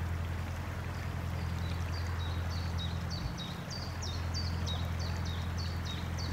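Water rippling along the bow of a narrowboat under way, over a steady low hum. From a second or so in, a small bird repeats a high chirping song of two alternating notes, about two to three a second.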